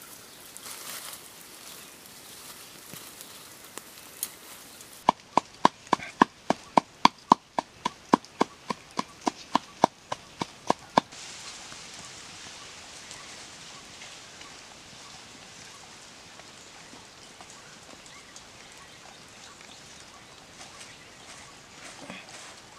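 A knife chopping quickly against a hard surface: about twenty sharp, ringing chops, three or four a second, for about six seconds from about five seconds in. Before and after, only a faint outdoor background.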